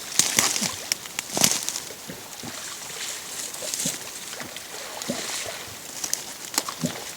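Water sloshing and splashing, with irregular knocks and rustles, louder in the first second and a half.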